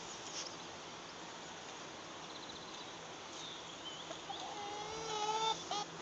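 Brown domestic hen giving a drawn-out, slightly wavering call of about a second near the end, followed by a short higher note, over faint high chirps.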